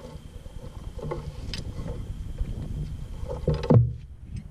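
Light clicks and knocks of a combination wrench and feeler gauge on the rocker arms of a stopped diesel while the valve lash is set, over a low rumble. A louder knock comes about three and a half seconds in.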